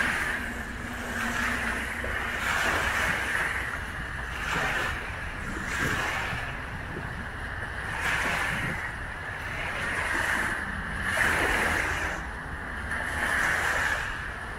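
Small choppy waves washing and breaking onto a sandy shore, swelling and fading about every two seconds.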